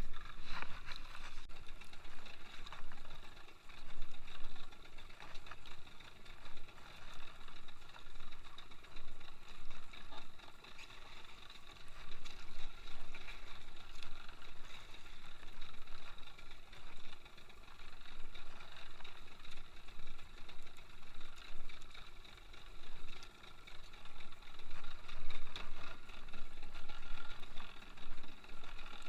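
Wind and water noise aboard a small fishing boat at sea, swelling and easing irregularly every second or two.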